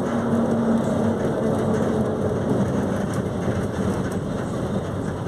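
Volkswagen 17.230 OD bus engine running with a steady low rumble; its note drops slightly in pitch about two and a half seconds in.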